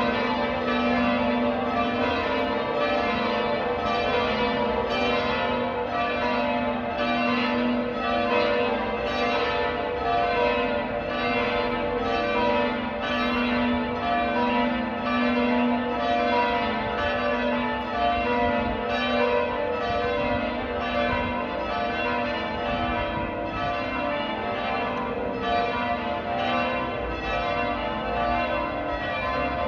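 Church bells ringing changes: an even, unbroken sequence of struck bell tones, each ringing on under the next.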